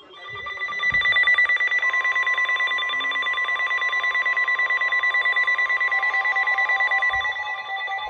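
Emergency Alert System alert tone heralding a flash flood warning: a loud, rapidly pulsing electronic tone over a steady high pitch, building up over the first second. A second steady tone joins about two seconds in.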